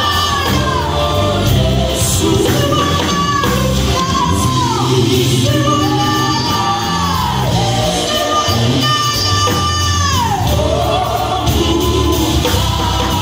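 A vocal group singing live with band accompaniment. Sung phrases hold a high note and then slide down at the end, over a steady bass line.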